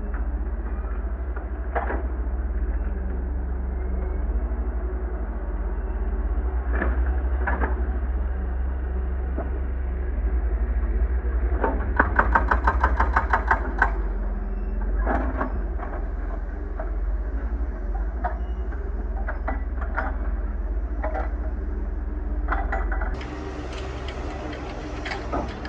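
Excavator's diesel engine running with a steady low rumble, while the bucket breaks up old asphalt with scattered knocks and cracks. Midway there is a fast rattle of clicks lasting about two seconds.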